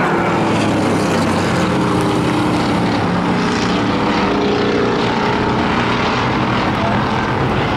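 Several stock car racing engines running at racing speed around a short oval track. It is a steady, loud mix of engine notes whose pitches shift as the cars pass.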